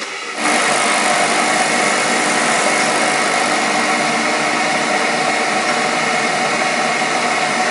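Pod coffee machine brewing a decaf pod: its pump buzzes loud and steady, starting about half a second in.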